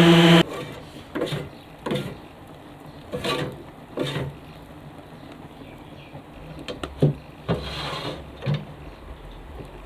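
Makita DBO180 random orbital sanders humming steadily at top speed, cutting off suddenly about half a second in; then a few scattered knocks and rattles.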